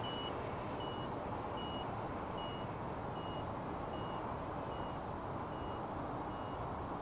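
Low-battery warning alarm beeping, a short high-pitched beep roughly every 0.8 s that grows gradually fainter, over a steady background rush. The alarm signals that the quadcopter's 4S flight battery is running down.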